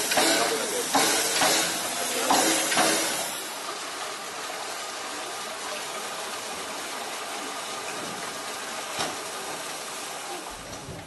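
Indoor background ambience: irregular voices and knocks for the first three seconds or so, then a steady hiss with a single click about nine seconds in.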